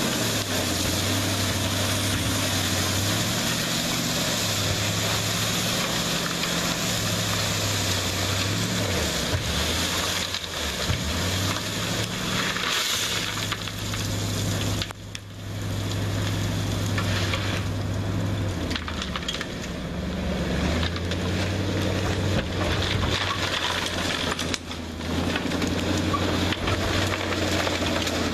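Vintage dump truck's engine running at a steady low drone while gravel pours and spreads from its raised bed with a continuous gritty crunching hiss. The engine note shifts a few times, and the sound dips briefly about halfway through.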